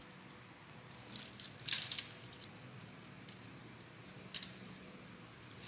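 Plastic clicks and snaps from a Zoids Wild Liger model kit as its blade weapon and head armour are pushed back into place by hand: a few sharp, scattered clicks, with a quick cluster of them about two seconds in.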